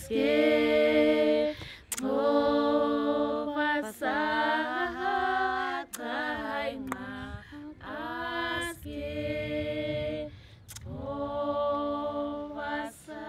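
A small group of women singing together unaccompanied, holding long notes in short phrases with brief breaks between them. It is a little softer in the second half.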